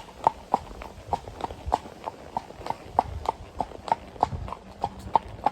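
Standardbred horse walking on a road, its hooves clip-clopping in an even beat of about three to four strikes a second.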